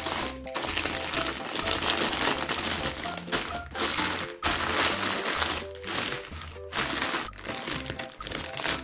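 Plastic candy packets crinkling as hands press, rub and handle them, over background music.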